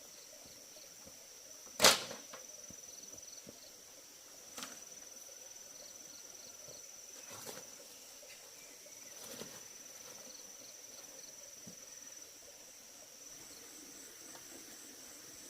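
Sharp knock about two seconds in, then three softer knocks spread over the next several seconds, over a steady high-pitched insect drone.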